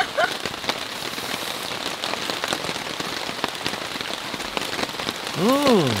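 Heavy rain pattering on a camping tarp: a steady hiss full of fine drop ticks. Near the end a person makes one short voiced sound that rises and falls.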